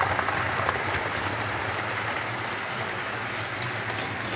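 Model Class 67 diesel locomotive and coaches running on model railway track: a steady electric-motor hum with light ticking of wheels over the rails.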